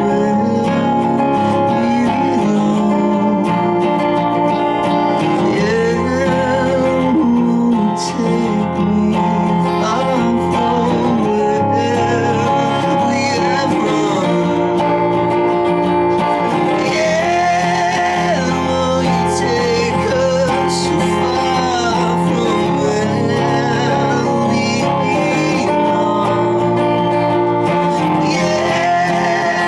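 A rock band playing live: guitars with a voice weaving over them, a slow, sustained passage of the song.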